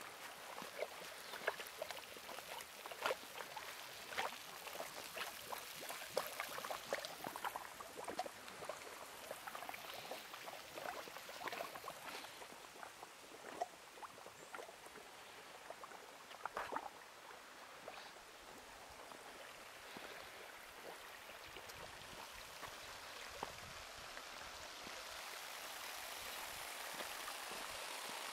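Shallow spring water trickling over travertine rock, with many small splashy ticks through the first two-thirds, giving way to a smoother, slowly rising hiss near the end.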